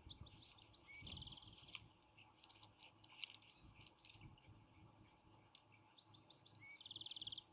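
A small songbird sings the same short song twice, a few seconds apart. Each song has a rising whistled note, a quick run of short notes and a fast buzzy trill. Under the singing there is a faint, uneven low rumble.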